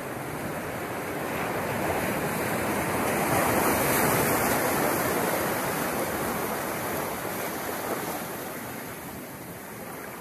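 Ocean surf washing over rocks: a steady rush that swells to its loudest about four seconds in, then eases off.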